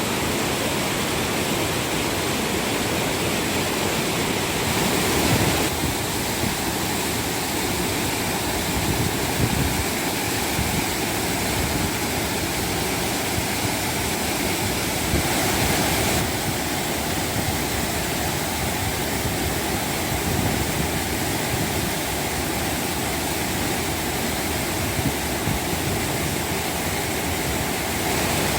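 Ōshin Fudō Falls roaring: a steady, loud rush of falling water. The whole flow is pouring down only one half of the falls because a typhoon landslide blocked the other half, so the volume of water is unusually heavy.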